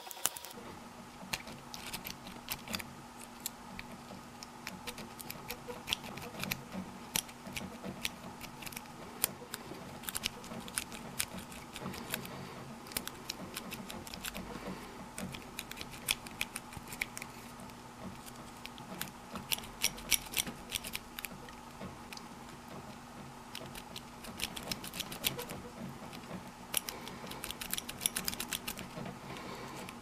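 Improvised metal pick cut from a chili can raking inside a Master dimple padlock's keyway against a tension wrench, making irregular light metallic clicks and ticks, in denser flurries about two-thirds through and again near the end. A faint steady hum sits underneath.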